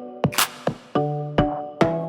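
Background music: an electronic track with sharp drum hits about every half second over sustained synth chords and a held bass note.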